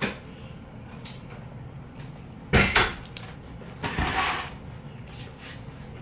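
Two sharp clacks a little over two seconds in, then a scraping rustle about a second later: chopsticks and a foam takeaway container being handled.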